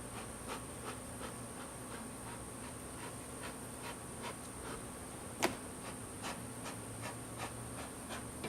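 Honeybees buzzing around an open hive in a steady hum, over a steady high insect drone with faint regular pulses about three times a second. A single sharp click about five and a half seconds in.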